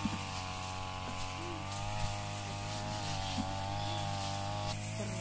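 A steady droning hum, like a small motor running, with a few light clicks over it.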